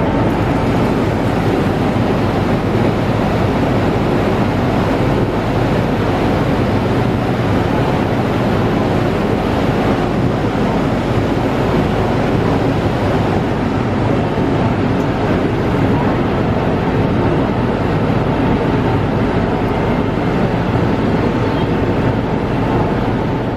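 MTR Tsuen Wan Line electric train running through the underground tunnel: a loud, steady rumble and rush of wheels and air that does not change, with a faint steady whine.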